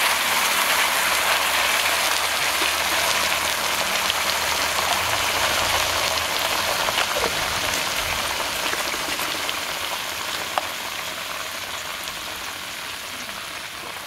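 Jackfruit curry sizzling in a hot wok just after ground masala and water are poured in: a dense crackling hiss that slowly dies down. One sharp click about ten seconds in.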